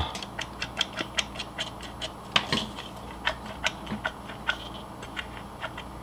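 Irregular small plastic clicks and taps, a few a second, from a Braun coffee grinder's plastic housing and its lid-switch contact and motor parts being worked by hand, with one sharper click about two and a half seconds in.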